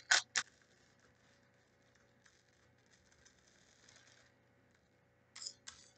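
Plastic beads faintly crackling and clicking as a pencil's eraser end pokes them down a plastic funnel into a balloon, the beads jammed in the funnel's neck. There are a couple of short, sharper scuffs at the start and two more near the end.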